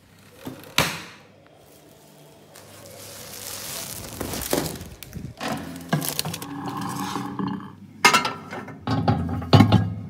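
Plastic packaging rustling and crinkling as it is pulled out of a microwave oven's cavity, with a sharp click about a second in. Several knocks and glassy clinks near the end come from handling around the glass turntable.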